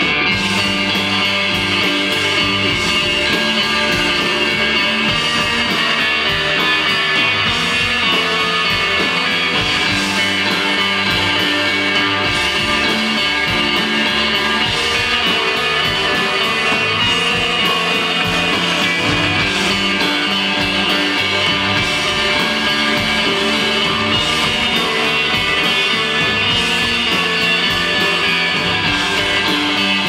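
Rock band playing live, with electric bass, guitar and drums, steady and loud without a break.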